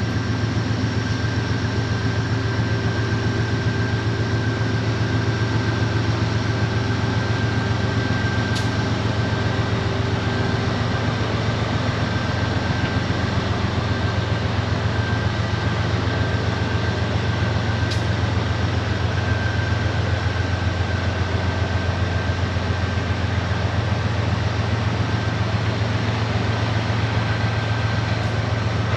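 Aurizon narrow-gauge diesel-electric locomotives passing slowly while hauling acid tank wagons: a steady low engine drone with a thin constant whine above it.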